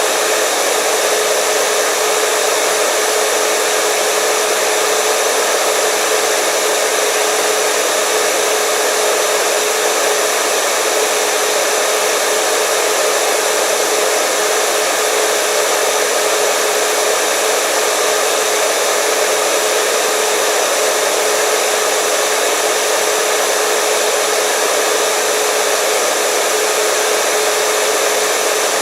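Hair dryer running steadily at a constant speed: an even airflow rush with a steady motor whine.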